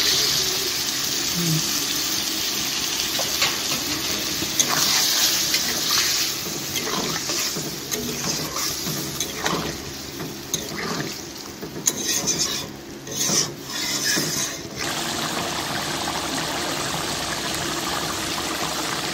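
Metal spatula stirring and scraping thinned soya chunk gravy around a kadai, with wet sloshing and irregular strokes against the pan. Underneath runs a steady hiss of the gravy cooking on the flame, left on its own once the stirring stops about three quarters of the way in.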